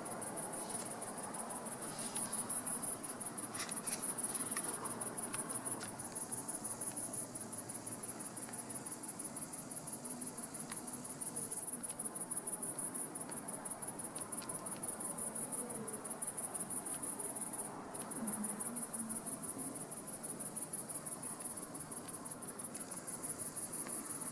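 Crickets chirping steadily in a fast, high-pitched trill.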